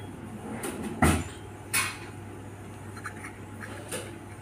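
A few sharp knocks and scrapes from a young parakeet pecking and eating bread in a cardboard box. The two loudest come about a second in and just before the two-second mark, with fainter ticks later, over a low steady hum.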